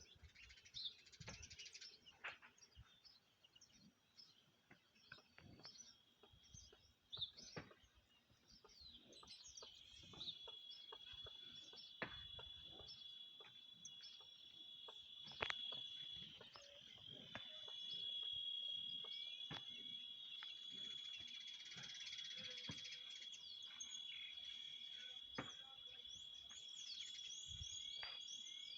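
Faint countryside ambience: scattered bird chirps, then about ten seconds in an insect starts a steady, high-pitched trill that continues throughout, with occasional small clicks.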